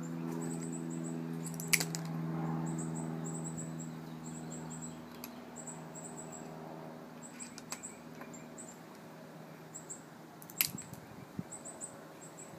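A distant engine hum that fades away over the first several seconds, with rapid high chirps repeating throughout and two sharp clicks, one about two seconds in and one near the end.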